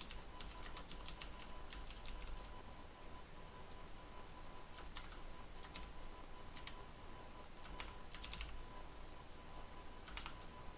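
Computer keyboard typing in irregular runs of keystrokes with short pauses between them.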